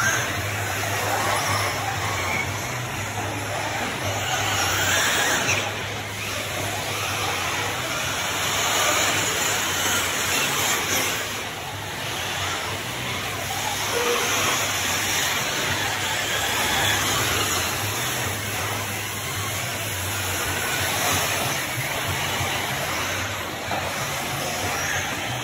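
Electric 1/8-scale RC truggies racing on a dirt track: a continuous mix of motor whine and tyres on dirt that swells and fades as the trucks pass, over a low steady hum.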